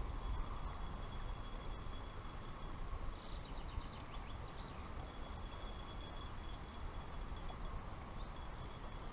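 Riverside ambience: uneven low wind rumble on the microphone over a steady hiss, with a bird chirping briefly about three to four seconds in.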